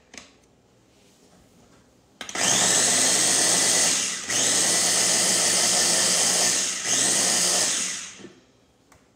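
Small food processor motor switched on about two seconds in and pulsed three times with short breaks, grinding a dry mix of ground almonds, nutritional yeast, miso and salt into vegan parmesan crumbs; the last pulse trails off as the motor spins down.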